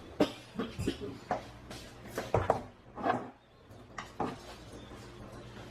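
Kitchen clatter of dishes and utensils being handled: a run of short knocks and clinks over the first four seconds, fewer near the end.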